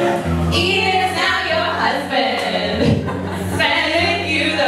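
Several women singing a song together into handheld microphones.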